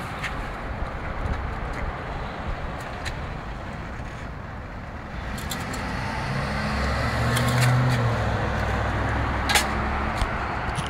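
Steady outdoor background noise. About halfway through, a low engine-like drone sets in, swells, and fades again shortly before the end.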